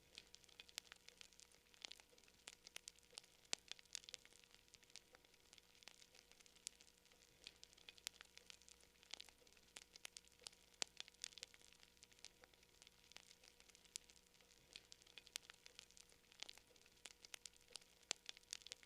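Campfire crackling faintly: wood burning with frequent irregular snaps and pops, several a second, over a soft hiss.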